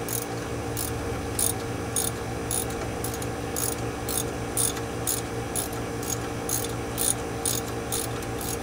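Socket ratchet clicking in a slow, even rhythm, about two to three clicks a second, as it turns the armature bolts on a Westerbeke marine generator. A steady hum runs underneath.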